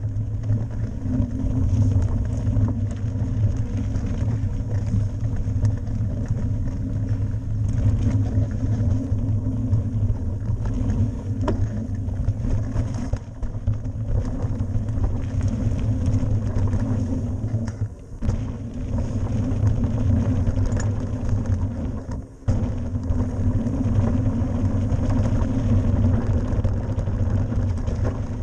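Mountain bike riding fast down a dirt forest trail: a steady loud low rumble of the tyres on the packed dirt and stones, with wind buffeting the bike-mounted camera's microphone. The rumble drops away briefly twice in the second half.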